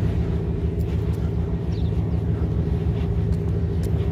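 A steady low rumble with an even level throughout, and a few faint ticks above it.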